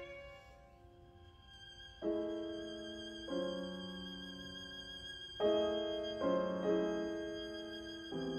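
Contemporary chamber music for violin, cello, clarinet, bassoon and piano. A held note fades into a quiet stretch over a thin, high sustained tone, then six sharply accented chords ring out and fade, spaced about a second apart.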